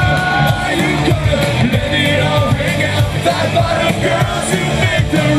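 Live rock band playing: a lead singer over electric guitars, bass and drums.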